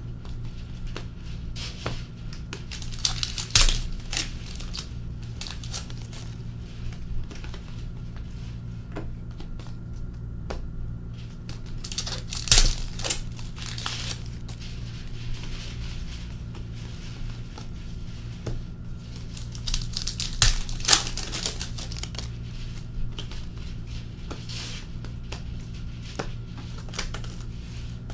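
Hockey card pack wrappers being torn open and crinkled, and cards handled and shuffled, in several louder bursts over a steady low hum.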